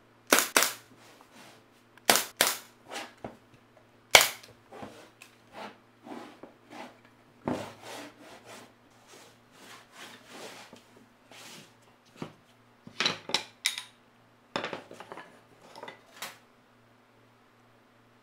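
A series of irregular sharp knocks and clacks, some loud and some faint, with a faint steady hum underneath.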